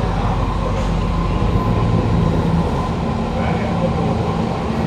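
Inside a Kawasaki Heavy Industries C151 metro car running at a steady speed: continuous rolling rumble with a steady low hum that holds one pitch.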